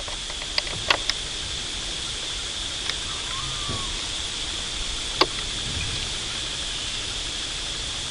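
Steady, high-pitched drone of insects in the forest, with a few sharp clicks about a second in and again just past five seconds, and a faint short chirp a little past three seconds.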